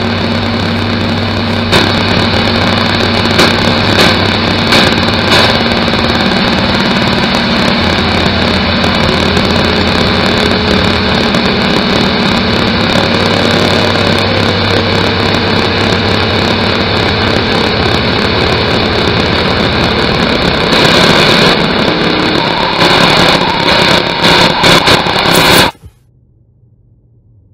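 Loud, dense droning soundscape: a thick wash of noise with several steady hum tones, slowly wavering tones and scattered clicks, rising a little near the end before cutting off suddenly.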